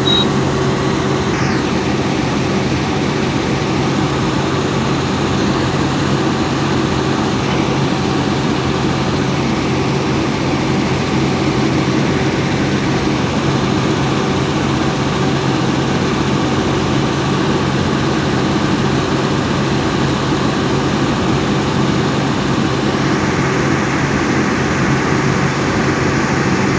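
Volvo EC210B excavator's six-cylinder diesel engine running steadily at work, with a steady low hum. A brighter hiss joins near the end.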